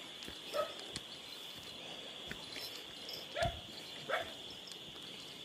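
A few short animal calls, spread through, over a steady high-pitched drone.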